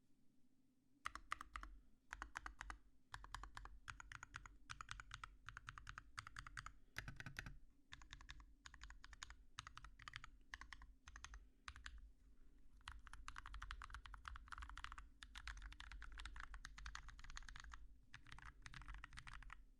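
Typing on a GMMK Compact mechanical keyboard with hand-lubed Holy Panda tactile switches, Tai-Hao keycaps and an aluminium plate. The keystrokes come in fast runs with a few short pauses, starting about a second in.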